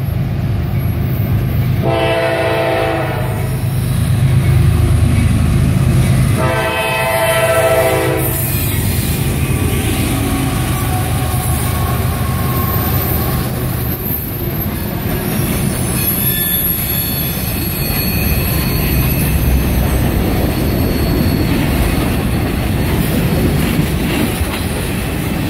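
CSX freight train passing close by. The locomotive horn sounds two chord blasts, about two seconds in and again around six to eight seconds, the second a little longer, over the low rumble of the diesel locomotives. After the locomotives, freight cars roll past with a steady clatter of wheels on rail joints.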